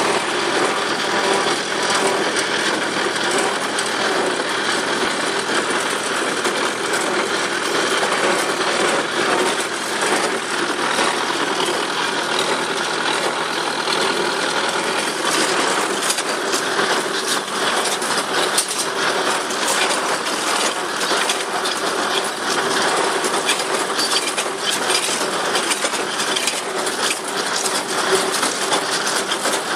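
Tractor towing a small square hay baler in operation: the engine running steadily under the baler's mechanical clatter, with a dense run of sharp clicks and knocks that grows busier in the second half.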